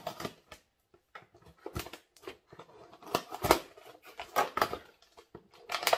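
Cardboard packaging being handled and tape pulled off it: irregular rustles and sharp crackles, the loudest about three and a half seconds in.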